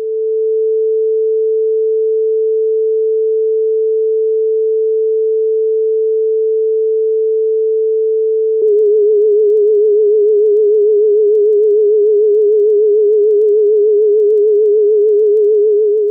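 Artificially generated sine test tone, held steady for about eight and a half seconds. After a small click it goes on wobbling rapidly and evenly up and down in pitch. This recreates the heavy flutter an Aiwa AD-F770 cassette deck had with rubber bands standing in for its drive belts.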